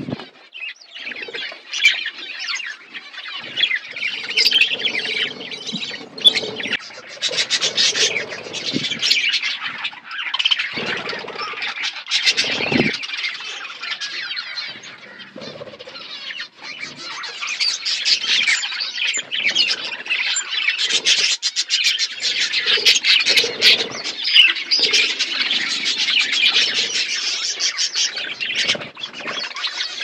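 A flock of budgerigars chirping continuously, many birds at once in a dense high chatter, quieter for a few seconds around the middle.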